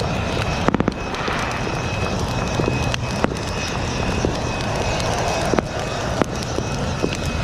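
Fireworks going off in scattered bangs and pops, a quick cluster of them about a second in and then single reports every second or so, over a steady background hiss.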